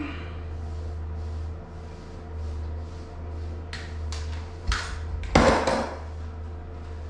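Handling noise of small tools and a tube: a few sharp clicks followed by one louder knock about five seconds in, over a steady low hum.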